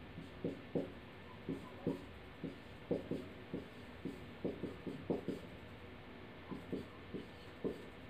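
Marker pen writing on a whiteboard: a run of short, irregular strokes and taps, with a pause of about a second just past the middle.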